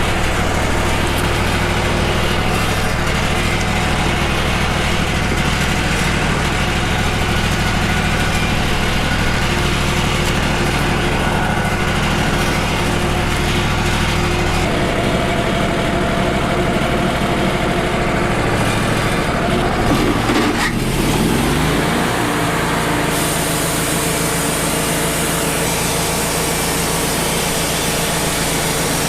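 Wood-Mizer LT35 portable band sawmill running steadily, its sound shifting about halfway through and its pitch sweeping about two-thirds of the way in before settling again.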